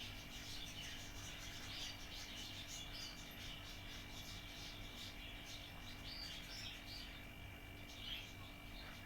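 Small birds chirping, with many short, high chirps scattered throughout, over a faint steady hum.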